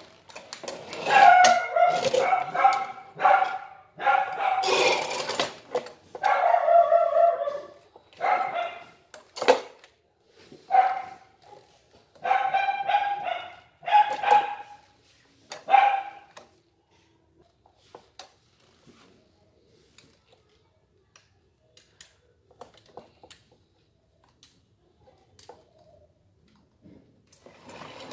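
A dog barking in repeated loud bursts for about the first half, then stopping; after that only faint clicks and taps from hands handling metal engine parts.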